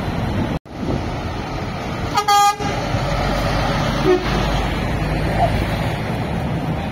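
Lorry horn giving one short toot about two seconds in, as an articulated lorry pulls past close by with its diesel engine running as a steady low rumble. The sound drops out for an instant near the start.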